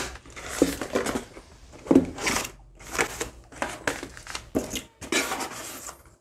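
Cardboard shipping box and plastic-wrapped packages being handled, rustling and crinkling in a run of short bursts, with a sharp knock right at the start.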